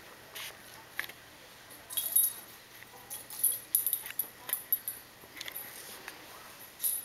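A Rottweiler puppy's collar tag jingling as the puppy moves, in short, irregular bursts of light clicks and tinkles, busiest from about two seconds in.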